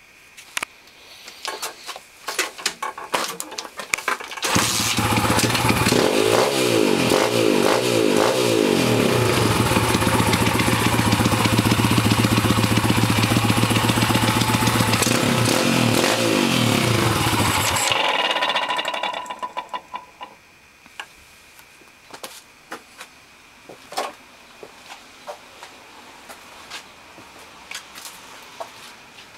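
PitsterPro X2 pit bike's single-cylinder four-stroke engine: a few clicks, then it starts about four and a half seconds in, runs and is revved up and down for about thirteen seconds, and is shut off. Scattered ticks follow. The owner hears a weird noise in it that he cannot identify.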